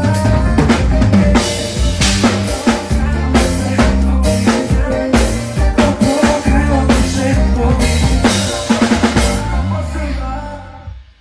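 Drum kit played along to a backing track with bass and melody, kick, snare and rim hits coming thick and fast; it all fades away near the end.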